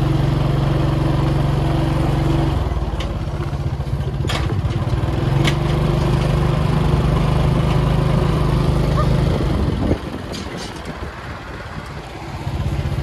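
Small motorcycle engine running steadily on the move, with a few sharp rattles and clicks. The engine drops away about ten seconds in and picks up again near the end.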